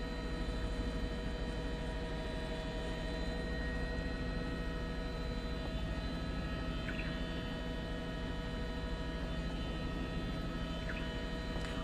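Steady drone of a helicopter's turbine engine and rotors heard from inside the cabin, a constant hum made of several fixed tones over a low throb.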